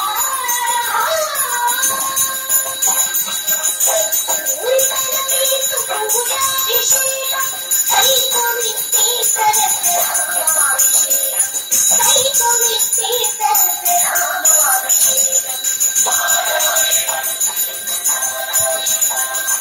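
Small brass puja hand bell (ghanta) rung steadily and without pause during a Hindu temple pooja, giving a bright, sustained jangling ring.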